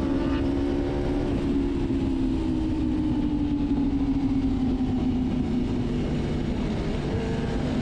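Sport motorcycle engine running at a steady cruise, its note sinking slowly over the first few seconds as the bike eases off, then holding steady, with wind rush on the microphone underneath.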